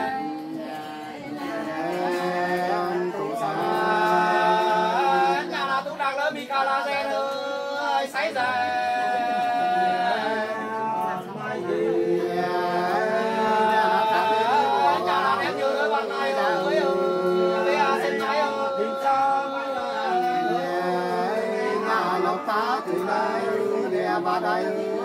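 Unaccompanied sli folk singing, the Nùng courting song, in long held notes that bend and waver, phrase after phrase.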